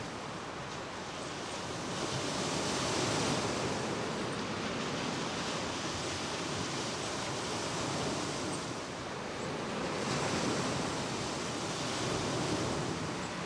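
Small lake waves breaking and washing on the shore of Lake Michigan: a steady wash of surf that swells and eases every few seconds.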